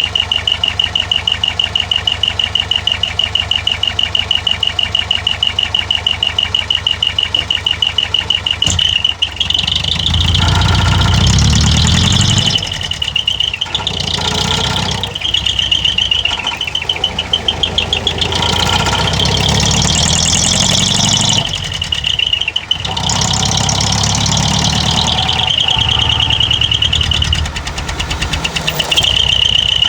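Mitsubishi Fuso Canter's 4D33 4.2-litre four-cylinder diesel running through a dual exhaust. It idles with an even pulsing beat, is revved up four times for a few seconds each, and settles back to idle between the revs and near the end.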